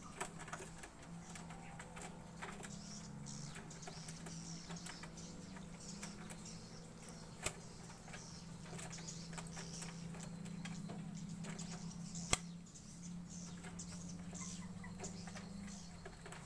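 Irregular light clicks and taps, two of them sharper, over a steady low hum.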